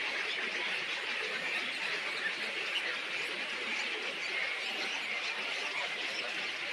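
Many small birds chattering and chirping at once: a continuous, dense chorus of short high calls with no pauses.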